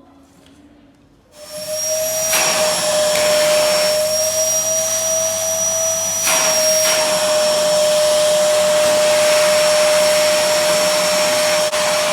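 Fantom DC3000 canister vacuum cleaner switched on about a second in, its motor quickly reaching full speed and running loud and steady with a high whine over the rush of air. The airflow changes briefly twice.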